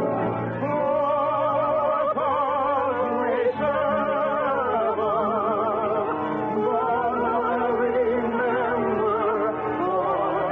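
Operatic singing with a wide, even vibrato on long held notes over an orchestra, with the dull, narrow sound of an early-1950s radio transcription recording.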